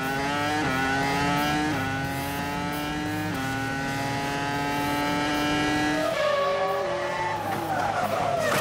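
Formula One car's V10 engine at full throttle, its pitch climbing steadily and dropping back at each of three upshifts. About six seconds in, the pitch falls in steps as it shifts down and slows.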